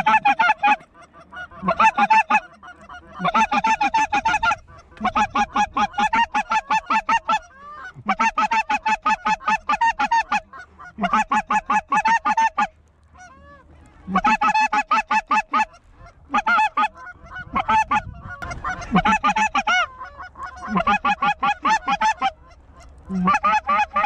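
Hand-blown goose calls sounding loud, close runs of rapid honks and clucks, about a second each with short pauses between, to bring in a circling flock.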